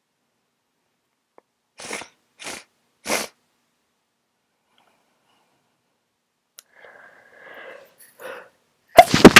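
A person with a head cold sniffs three times in quick succession, then gasps and catches their breath, building up to a loud, sudden stifled sneeze near the end.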